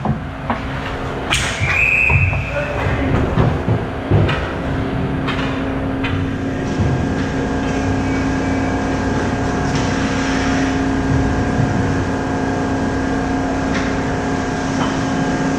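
Hockey sticks, skates and puck clattering and knocking around the net close by, with a short referee's whistle about two seconds in. After that the scramble dies away into steady ice-rink noise with a constant hum.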